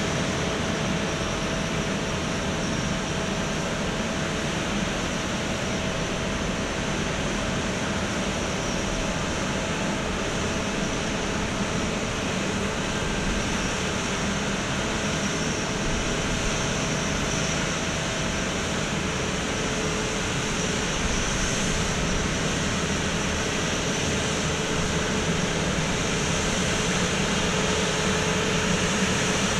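Airbus A350-900 jet airliner running at idle: a steady rush of noise with a couple of faint, steady whining tones, growing slightly louder near the end.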